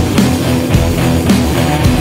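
Loud rock music with guitar, without singing in this stretch.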